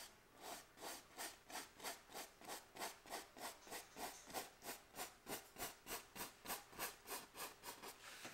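Paintbrush bristles rubbing back and forth on a wet oil-painted canvas in a steady rhythm of about three strokes a second, pulling the paint out into a soft blend.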